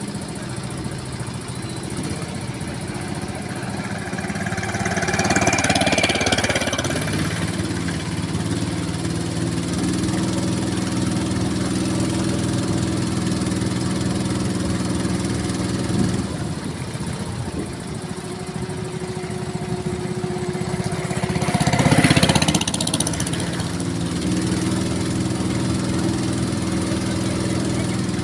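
A small boat engine running steadily, its pitch shifting slightly a couple of times, with a rushing noise that swells twice, the second time louder.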